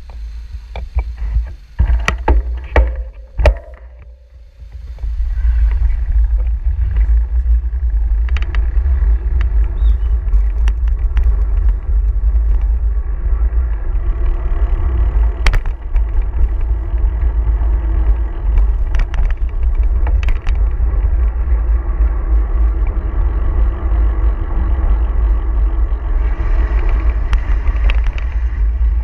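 Wind buffeting the microphone of a camera riding on a moving bicycle, a heavy low rumble mixed with the rush of city motor traffic. A few sharp knocks come in the first few seconds, and about five seconds in the rush grows louder and stays steady.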